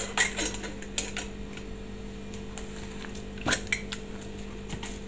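Scattered light clicks and clatters of dishware being handled for steaming, a few near the start and a short cluster about three and a half seconds in, over a steady low hum.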